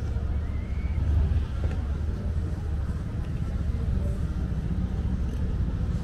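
Outdoor city street ambience: a steady low rumble with faint snatches of passers-by's voices.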